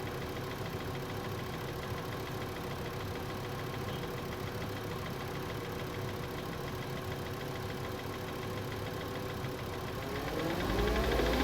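2012 VW Passat 2.5-litre five-cylinder engine idling cold with a tapping from the engine bay, which the owner suspects comes from a bad water pump or belt tensioner. Near the end the engine is revved, its pitch and loudness rising.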